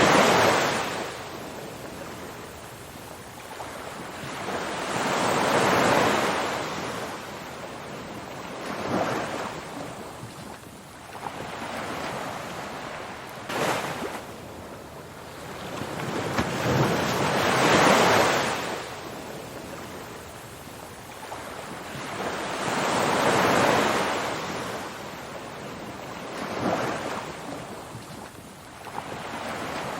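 Ocean surf: waves break and wash in as slow swells of noise every five or six seconds, then draw back between them.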